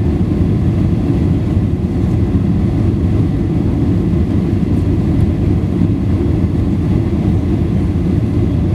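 Steady, loud low rumble of a Boeing 737-800's CFM56 jet engines and the airflow over the fuselage, heard from inside the passenger cabin.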